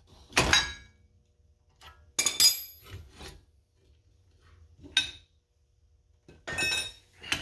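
Steel bearing puller and the freed front wheel hub clinking and clanking as they are handled and lifted off the steering knuckle: about six separate metallic knocks, each with a short ring.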